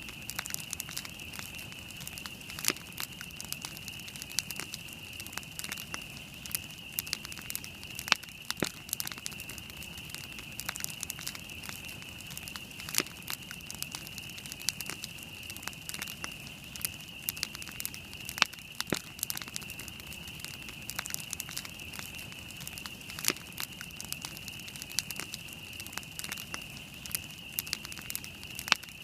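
Wood campfire burning and crackling, with frequent sharp pops and snaps at irregular intervals, over a steady high-pitched hiss.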